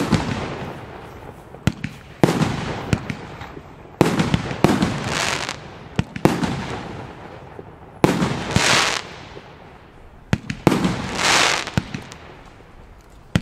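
Gaoo Bulldog 40 mm F3 fireworks battery firing single shots roughly every two seconds. Each shot is a sudden bang followed by a fading hiss.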